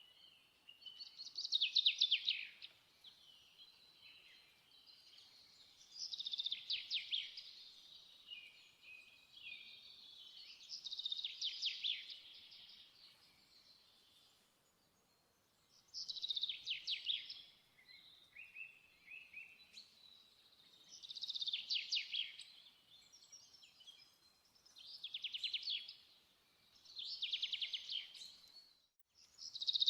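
A songbird singing: short, rapid trilled phrases repeated every few seconds, with softer chirps between them.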